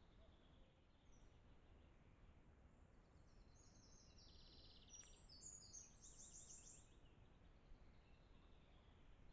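A songbird sings a rapid trilled phrase of several quick runs of high notes, stepping between pitches, lasting about four seconds in the middle, faint over a steady low background hiss.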